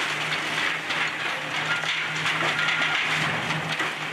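Excavator engine running with a steady low hum while its demolition grapple tears at a brick wall and roof, with bricks and timber crunching and clattering throughout and a brief high squeal about two seconds in.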